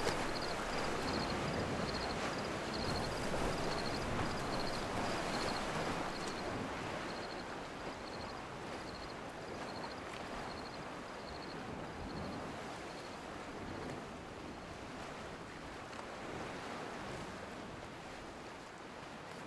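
Sea ambience: steady surf and wind, slowly fading. A high, repeated chirping runs over it and stops about two-thirds of the way through.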